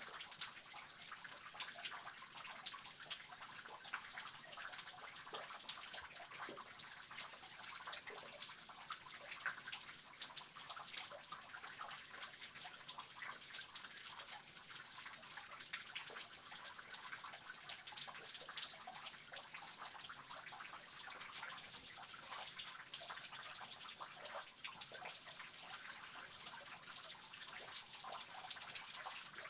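Water dripping and trickling inside a cave, echoing: many quick drips over a steady faint trickle.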